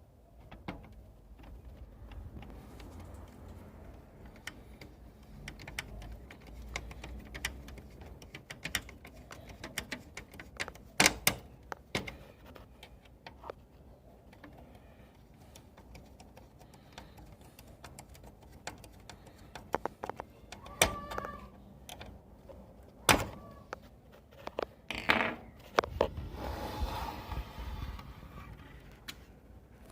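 Irregular clicks, taps and handling noise, with a few louder knocks spread through.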